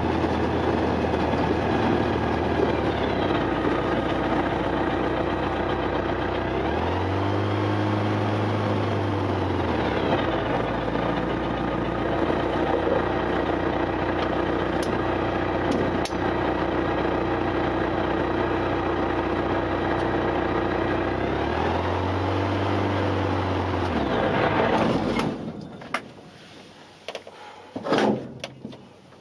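Humbert Tétras microlight's engine and propeller running at taxi power from inside the cockpit, the revs rising and falling back twice. About 25 seconds in the engine is shut down and winds down, followed by a few light clicks and knocks.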